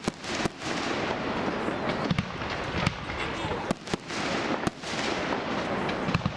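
Aerial firework shells bursting overhead, about seven sharp bangs at irregular intervals over a constant background rumble.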